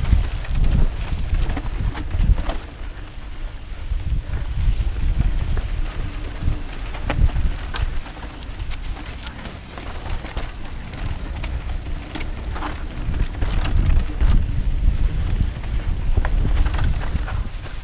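A mountain bike ridden fast over dry, rocky dirt singletrack: wind buffeting the microphone as a heavy rumble, with tyres crunching over dirt and many short rattles and clicks from the bike as it goes over bumps.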